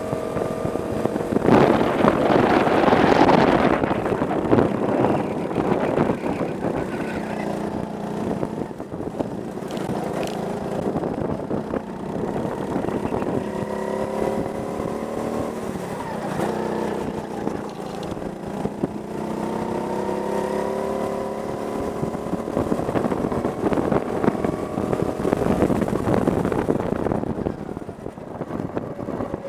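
Go-kart engine running hard at speed, heard from the driver's seat, its pitch climbing again and again as the kart accelerates out of the corners. A loud rush of wind noise on the helmet-mounted mic covers it for a couple of seconds near the start.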